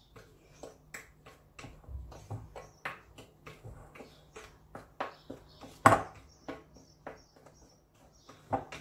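Spatula stirring a dry flour, cornstarch and spice mix in a glass bowl: irregular soft knocks and scrapes against the glass, a few a second, with one sharper knock about six seconds in.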